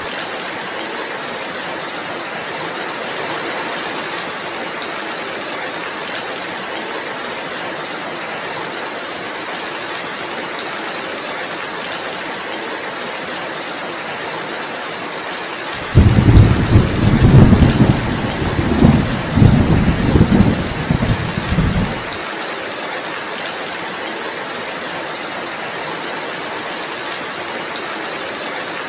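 Steady heavy rainfall, with a loud low rumble of thunder rolling for about six seconds just past the middle.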